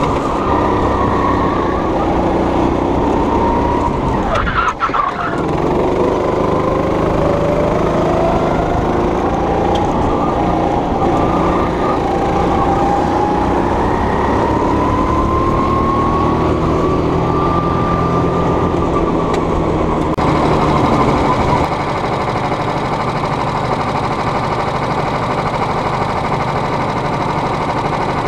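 Go-kart engine heard from the driver's seat while lapping: the revs drop sharply about five seconds in, then climb steadily for over ten seconds as the kart accelerates, and level off near the end.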